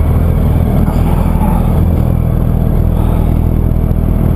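Yamaha R1's inline-four engine running steadily at low revs in slow traffic, a steady low drone with no revving.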